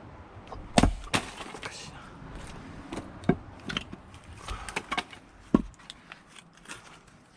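Axe splitting firewood: a sharp strike about a second in and another a little after five and a half seconds, with lighter wooden knocks between them.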